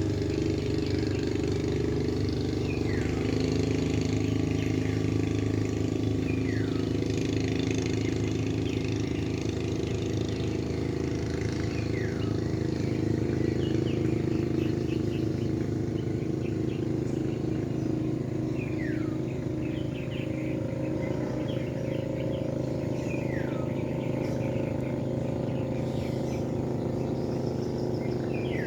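A motor running steadily at a constant pitch, with a bird's short falling whistle repeated six times over the stretch.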